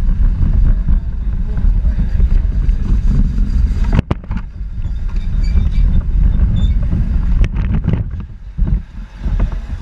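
Onboard rumble of a Power Racing Series car, a small electric ride-on racer, driving at speed: a loud, steady low rumble of vibration and wind on a camera mounted on the car. A sharp knock comes about four seconds in, a few more knocks follow near the end, and the rumble briefly drops off.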